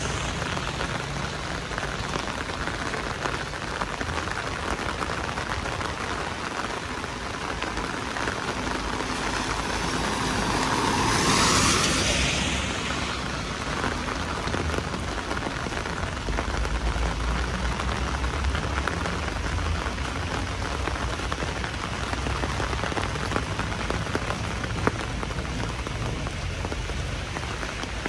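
Heavy rain falling steadily, an even hiss throughout. About eleven seconds in there is a brief, louder rushing swell.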